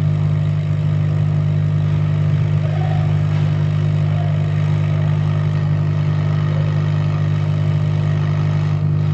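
Steady low hum of a small motor or fan whirring, unchanging in pitch and level.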